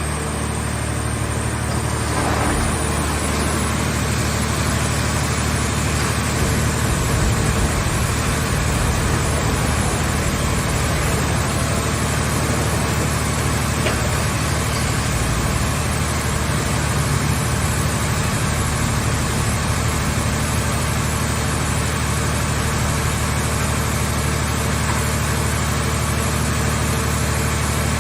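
Engine running steadily at a constant speed, most likely the power unit driving a car-body baling press.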